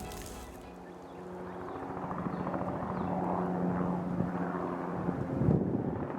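Low-flying helicopter, its rotor thrum growing louder over the first few seconds as it approaches. A brief gust of wind hits the microphone near the end.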